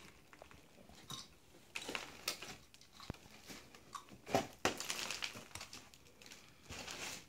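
Irregular crinkling, rustling and crumbling as wet, broken wall board and debris are handled in a plastic trash bag and peeled from the wall, the noise coming in uneven scrapes and crackles that grow busier in the second half and stop abruptly at the end.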